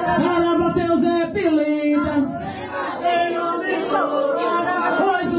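Group of worshippers singing an Umbanda ponto (sacred chant) together. The melody holds long notes that step down in pitch.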